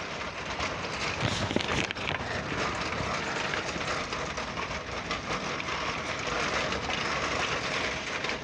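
Metal shopping cart being pushed along pavement, its wheels and wire basket rattling steadily.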